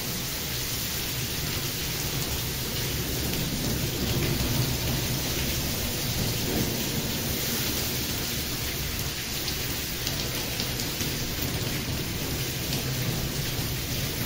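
Steady rain falling, with a low rumble of thunder underneath.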